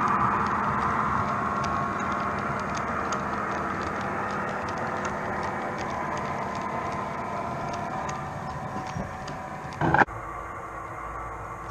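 Model train running on the layout's track: a steady electric-motor and wheel whirr with faint regular ticks, slowly fading. Just before ten seconds in, a short loud clatter, after which only a quieter hiss remains.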